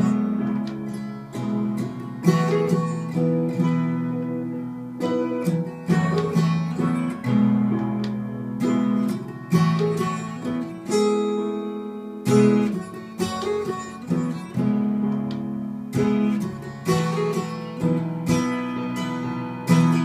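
Gibson Hummingbird acoustic guitar, capoed, played in a steady rhythm of strummed chords that ring on between strokes, the chords changing every few seconds.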